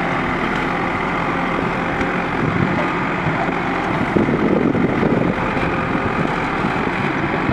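JCB 3DX backhoe loader's diesel engine running steadily while the backhoe digs and lifts a bucket of earth, a little louder about halfway through.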